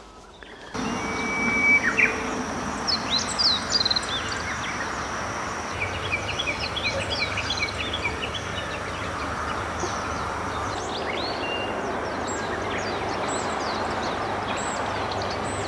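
Several wild birds chirping and calling in quick, short notes over a steady outdoor background hiss, with a faint low hum underneath from about six seconds in.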